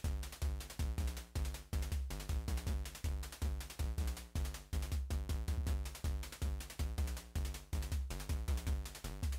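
Background music: an electronic track with a steady drum-machine beat and bass.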